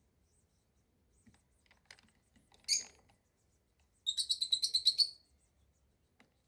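A bird calling: one short high chirp, then a second later a rapid high trill of about a dozen notes lasting about a second.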